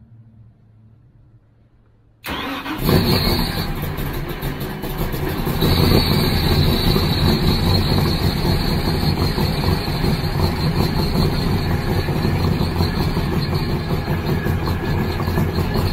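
Twin supercharged Mercury Racing 1075 V8 engines of a Donzi ZRC powerboat start up suddenly about two seconds in, then run at a steady, loud idle.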